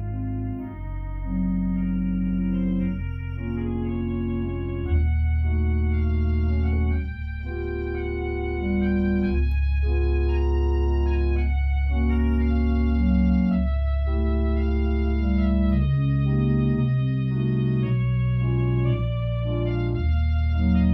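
Organ playing a solemn piece in sustained chords on the manuals over long-held deep pedal bass notes, the chords changing about once a second.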